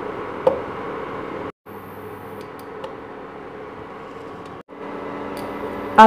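Steady hum and hiss of an induction cooktop running under a frying pan of melting ghee. The sound is broken twice by a brief total silence, with one small click about half a second in.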